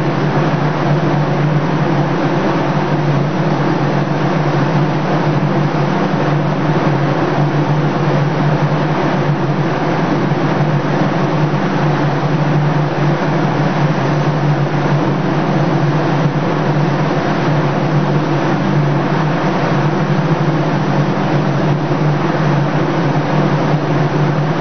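Spray booth running: a steady, loud machine hum and rushing noise from the booth's fan and water curtain, with the hiss of an air spray gun applying paint.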